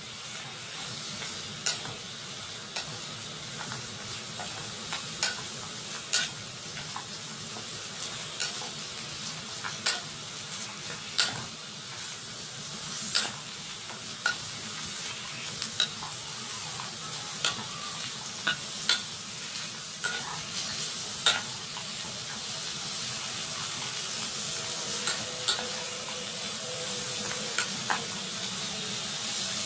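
Bottle gourd strips sizzling as they stir-fry in a pan, with a wooden spatula turning them and knocking against the pan about once every second or two.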